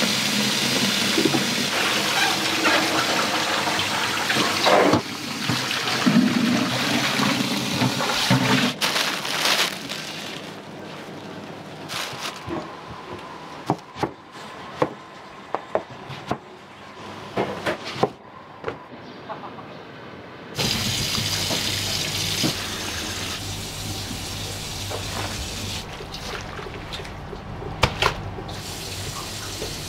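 Tap water pouring onto wakame seaweed in a plastic colander, a steady rush for the first nine seconds or so. Then a kitchen knife cuts an eggplant on a cutting board in scattered sharp knocks, and near the end a steady low hum takes over.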